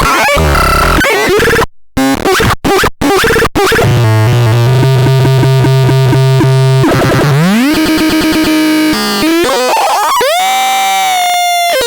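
Magardan Ardnach CN 6010 electronic sound device playing harsh synthesized tones and noise, loud throughout. It cuts out briefly a few times about two to three seconds in, then gives a low buzz chopped in a fast rhythm, a rising pitch sweep into a held tone, and bending, warbling tones near the end.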